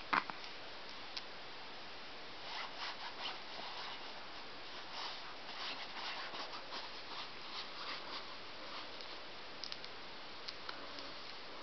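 Faint rustling and scratching, with a few small clicks near the start and near the end.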